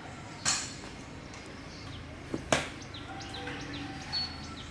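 Three sharp clicks or knocks: one about half a second in, then two close together a little after two seconds. Short, high, falling chirps follow near the end.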